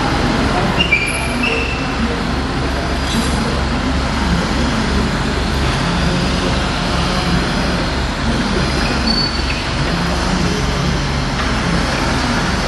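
Hydraulic system of a service truck's box body running steadily with a low pulsing drone as the side door panel is lowered shut. A few short squeaks come about a second in.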